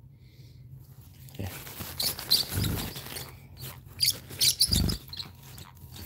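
Pet parrots, a cockatoo and a small parrot, making short squeaky chirps amid rustling and scrabbling, with two dull thumps, one near the middle and one about five seconds in.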